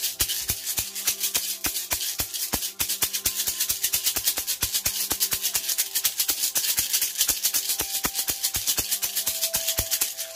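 A hand shaker rattle shaken in quick, even strokes, several a second, with steady held tones underneath.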